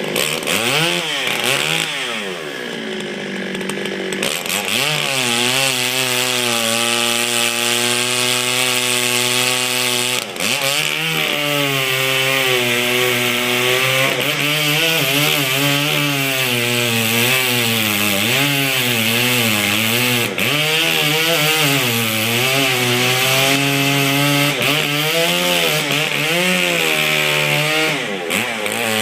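Large Stihl chainsaw running at high revs while cutting through a white oak trunk; its engine pitch drops and recovers several times as the bar loads in the cut or the throttle is let off.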